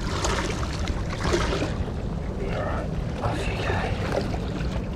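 Small waves sloshing against shoreline rocks, with irregular splashes from hands in the shallow water, over a steady low rumble of wind on the microphone.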